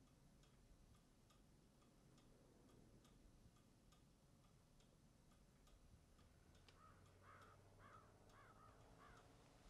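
Near silence in a quiet room, with a clock ticking faintly at about two ticks a second. Near the end come five faint short calls in quick succession.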